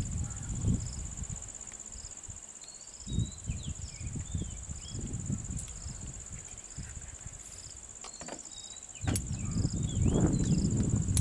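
Insects droning steadily at a high pitch, with another insect chirping about once a second and a few short bird-like calls. Irregular low rumbling, the loudest sound, comes and goes near the start, through the middle and again near the end.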